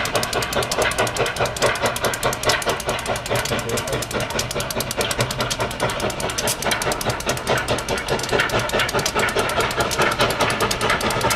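Locomotive running with a rapid, even pulsing beat at a steady level.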